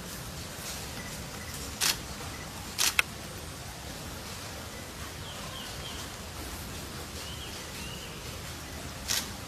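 Steady outdoor background noise with a few short, sharp bursts of noise and some faint, brief high chirps in the middle.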